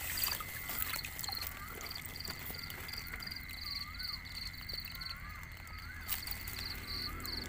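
Night chorus of insects and frogs at a rice-field canal. A steady high-pitched drone runs under a short high trill repeated about three times a second, with scattered short rising-and-falling chirps.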